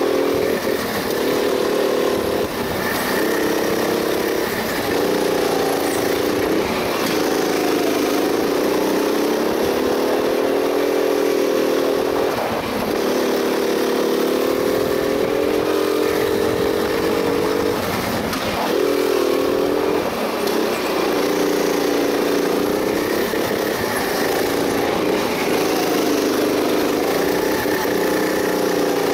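Go-kart engine heard close up from on board, pulling hard along the straights, its pitch rising and falling and dropping briefly every few seconds as the driver lifts off for the corners.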